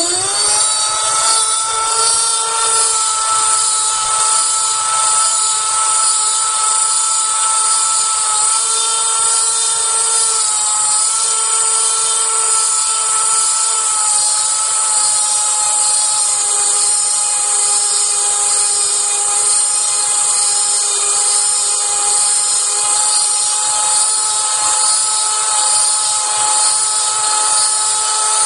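EMCEE 1140 Mark-X Microsep running its second clean cycle: a steady electric motor whine with a high hiss.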